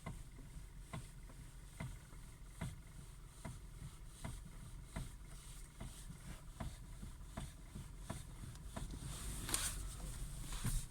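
Knocking from the steering column's universal joint (steering cardan) of a 2009 Kia Ceed as the steering is worked, short sharp knocks coming evenly about once every 0.8 seconds. The knock is the sign of a worn steering cardan joint and appears in one steering direction only, not when turning right.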